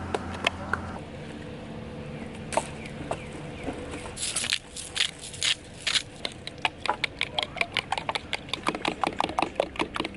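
A knife chopping vegetables on a cutting board: a run of sharp knocks that speeds up about halfway through, to roughly four or five chops a second.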